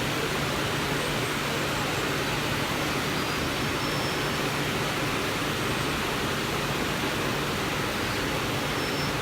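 Automatic PP woven-bag cutting and sewing machine running: a steady, even machine noise with a constant low hum.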